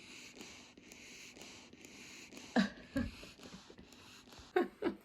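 Sleeping dog snoring and breathing noisily, with two short sharp sounds about two and a half and three seconds in and a quick run of short breaths near the end.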